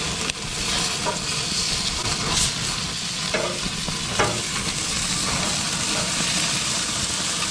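Beef short ribs sizzling steadily on the hot grates of a gas grill as they are flipped, with a few light clicks of metal tongs.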